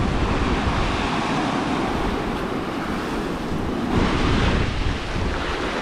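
Sea surf washing ashore, with wind rumbling on the microphone; the wash swells briefly about four seconds in.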